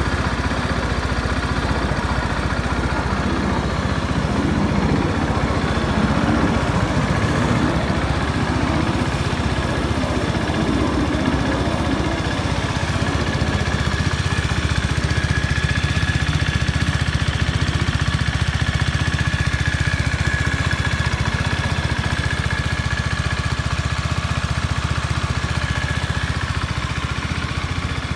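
2017 Hyosung GD250R's 250 cc parallel-twin engine idling steadily in neutral.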